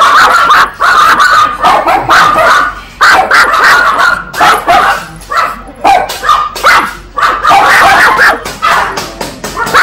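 Small Chihuahua barking loudly and continuously, high-pitched barks coming several a second in quick runs with brief pauses between them.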